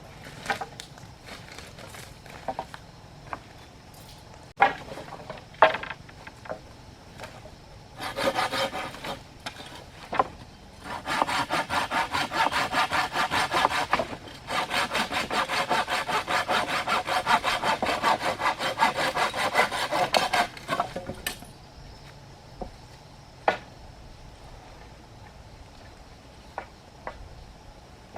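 Hand saw cutting through wood in fast, even back-and-forth strokes, about four a second, in a short burst and then two long runs with a brief pause between them. Scattered sharp knocks and clicks come before and after the sawing.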